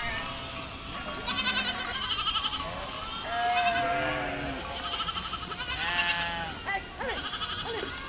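A herd of goats bleating, one call after another with several overlapping, some with a quavering tremble.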